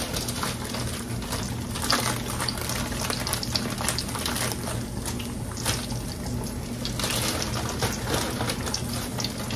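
Oil sizzling and crackling steadily around a chicken wing frying in a stainless pan, with a plastic bag of flour and wings shaken and rustled partway through.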